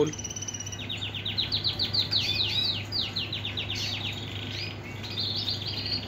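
Male yellow Super Shirazi canary singing its full song, the song of a cock in breeding condition. A held high note gives way about a second in to a fast run of rising chirps and a rapid rolling trill, and then more chirps.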